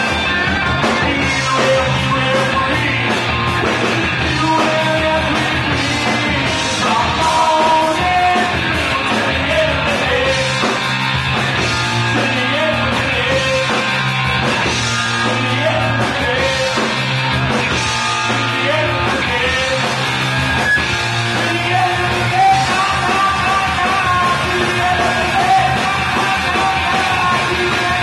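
Live rock band playing: electric guitars and drums under male vocals sung and shouted into microphones.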